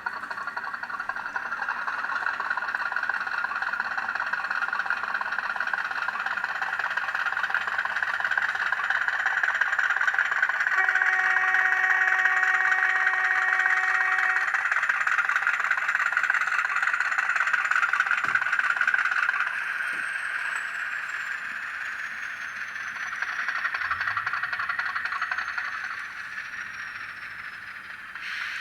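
N gauge model of the LMS diesel 10001 running in reverse with its DCC sound decoder: a steady diesel-engine and running noise from the small model, growing louder and then fading near the end. About eleven seconds in, one steady horn blast of about three and a half seconds sounds over it.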